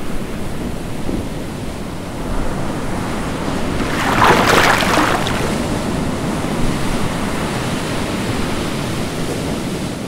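Ocean waves and surf: a steady wash of sea noise, with a louder surge about four seconds in.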